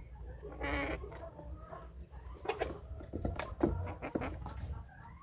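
Young chickens clucking while feeding, with one raspy squawk a little under a second in, then short clucks and a cluster of sharp taps from beaks pecking at the floor and dish.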